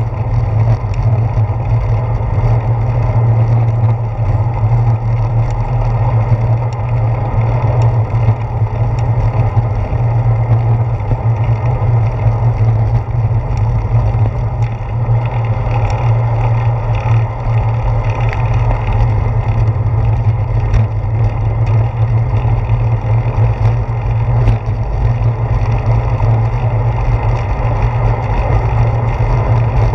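Steady, loud rumble of wind and road vibration picked up by a handlebar-mounted GoPro Hero 4 as the bicycle rolls along a paved trail.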